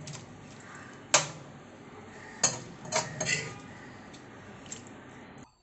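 Steel ladle scraping and clinking against metal cookware as thick prawn masala is spooned into coconut milk. Sharp clinks come about a second in and three more between two and a half and three and a half seconds in. The sound cuts off just before the end.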